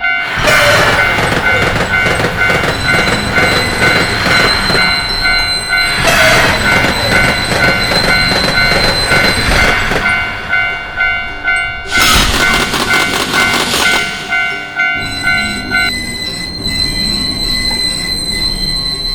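Japanese level-crossing warning bell ringing its repeated kan-kan while a train runs past over uneven track, the wheels clattering in a rough rhythm, with louder surges about every six seconds. The bell stops near the end.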